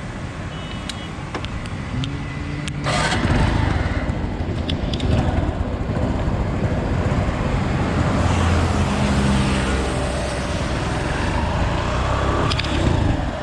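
Motorbike engine running as the bike pulls away about three seconds in, then getting louder and its pitch rising and falling as the bike rides along.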